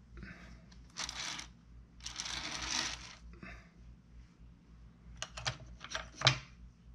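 Brief rustling and scraping, then a quick series of light metallic clicks and clinks with the sharpest one near the end, as metal sculpting tools are handled and set down on a wooden workbench.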